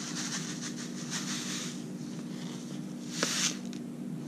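Paper seed packet rustling and scraping as small seeds are shaken out of it into a palm: three short rustles, the loudest about three seconds in. A steady low hum runs underneath.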